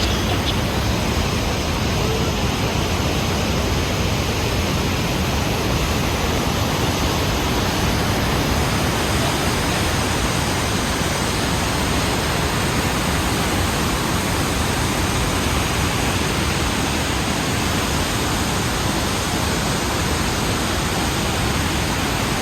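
The Rhine Falls, a broad, high-volume waterfall, with its water pouring down in a steady, loud, unbroken rush, heard up close from the rock in the middle of the falls.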